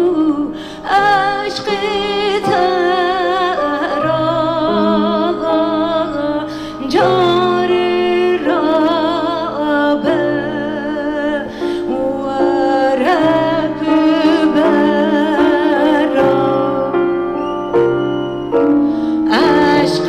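A woman singing a long, slow folk melody with strong vibrato, in phrases with short breaks, accompanied by a plucked bağlama (long-necked saz) and held low notes underneath.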